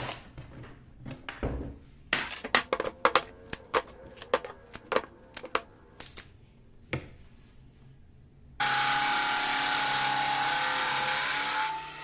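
Wooden segmented rings knocking and clicking against each other as they are handled and fitted together, a quick run of sharp knocks. About nine seconds in, a drum sander comes in loud and steady, a hissing whir with a steady hum, and drops to a quieter run near the end.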